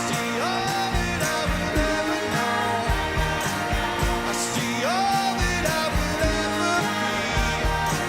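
A rock band playing live with a lead vocal: a steady drumbeat under sustained chords, the voice sliding up into a long held note twice.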